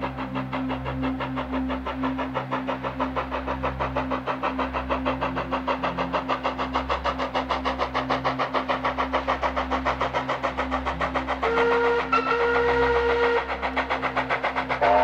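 Steam locomotive working along with a rapid, even beat of exhaust chuffs that quickens slightly, and a whistle blast near the end, briefly broken at its start.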